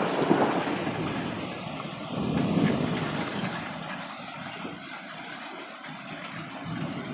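Thunder rumbling and dying away, swelling once more about two and a half seconds in, over the steady hiss of rain.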